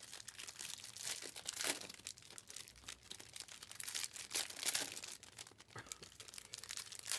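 Trading card pack wrappers crinkling and tearing open while cards are handled: an irregular run of short crackles.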